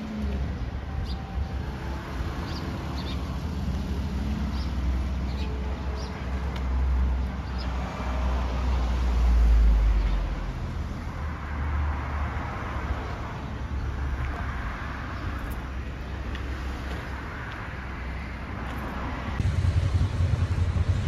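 Street traffic: cars passing along a road over a steady low rumble, with short high bird chirps over the first several seconds. Near the end the rumble gets louder and gustier, like wind on the microphone.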